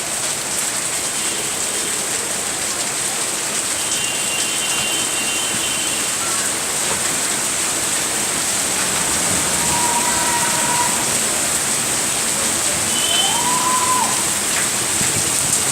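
Heavy rain pouring down steadily as a dense, even hiss. A few faint, brief tones sound above it, about ten seconds in and again near fourteen seconds.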